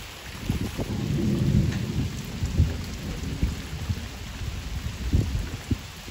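Steady rain falling, with a low rumble of thunder that swells about a second in and then fades in uneven pulses.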